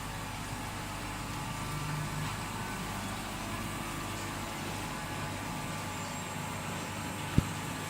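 Automatic straight-knife grinder running, a steady mechanical hum of the grinding-wheel motor and carriage. A single sharp click near the end.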